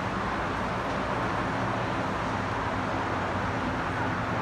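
Steady road traffic noise: an even rush with a faint low engine hum underneath, unchanging throughout.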